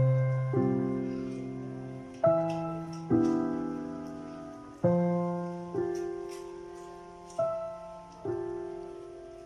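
Background music: slow piano chords, each struck and left to fade, a new one about every one to two seconds.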